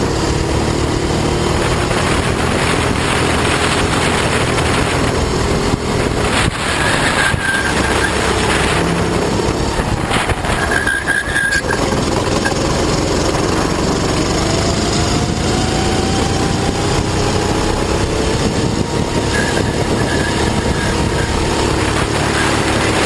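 The 390cc single-cylinder Honda four-stroke engine of a Sodi rental kart, driven hard through a fast lap, its revs falling into the corners and climbing again out of them, with a brief dip about eleven seconds in.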